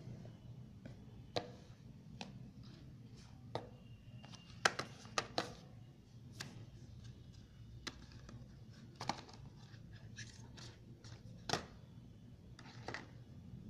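Handling noise from a smartphone's cardboard retail box and packaging: irregular light taps, clicks and rustles as the pieces are moved about, with a small cluster of louder clicks about five seconds in and another near eleven seconds, over a faint low hum.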